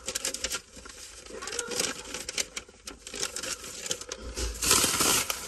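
Plastic shopping bag crinkling and rustling in a run of short crackles as hands rummage through it, with a longer, louder rustle near the end.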